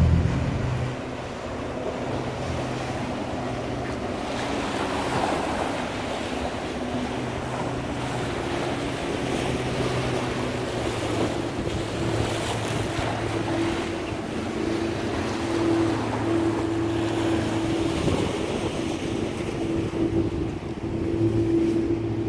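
Sea surf washing with wind on the microphone, under the steady hum of a boat engine that grows stronger in the second half.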